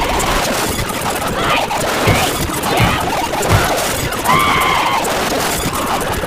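A dense jumble of many short clips' soundtracks playing at once: overlapping voices and music over a constant crackle of pops and crashes, with a few short wavering tones, one about a second in and one past the middle.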